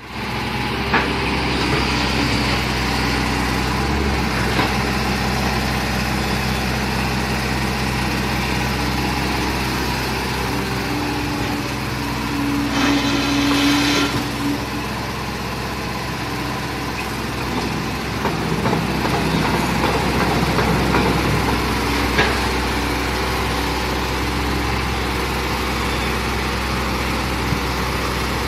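Hitachi hydraulic excavator's diesel engine running steadily, with a louder whine for about a second and a half near the middle.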